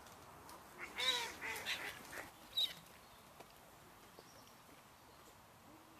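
Waterbirds calling: a cluster of several harsh calls with bending pitch about a second in, ending with one short, sharp call at about two and a half seconds.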